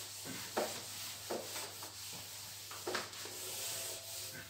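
Whiteboard eraser rubbed back and forth across the whiteboard, wiping off marker writing: a steady scrubbing with a few sharper strokes.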